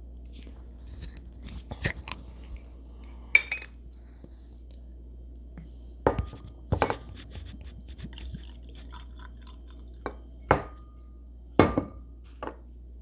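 Glass drink bottle being handled: scattered sharp clicks and clinks, several with a brief ringing tone, over a steady low hum.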